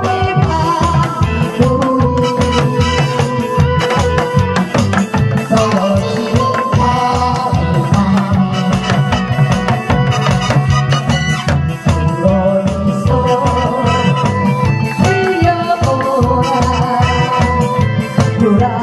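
Korean buk and janggu drums played to a steady fast beat over a disco-style trot medley backing track with a sustained melody line.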